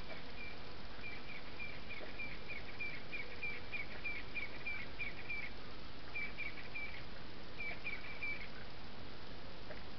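A bird calling a fast run of short, high, even notes, about four or five a second, in three bursts with brief pauses between them. Under it is the steady hiss of the field camera's microphone.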